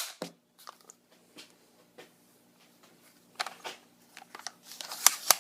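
Clicks and rattles of a Walther-made HK MP5 .22LR and its magazine being handled: a sharp snap right at the start, scattered small clicks, then a denser run of clicks and rattling near the end with one sharp click.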